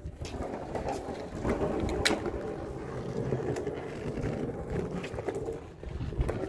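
Skateboard wheels rolling over rough pavement, a steady rumble, with a sharp click about two seconds in.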